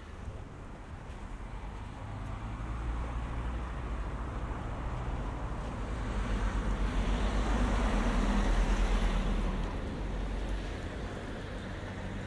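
A motor vehicle driving past on the street: a low engine hum and tyre noise build over several seconds, are loudest about eight seconds in, then fade.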